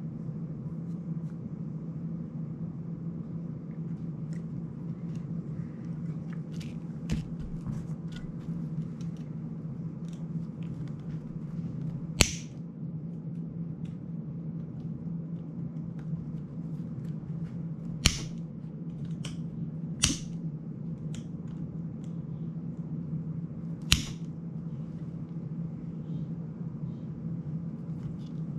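Small clicks and taps from handling a small FPV drone frame and its parts by hand, four of them sharp and clearly louder, spread over the stretch, with fainter ticks in between. A steady low hum runs underneath.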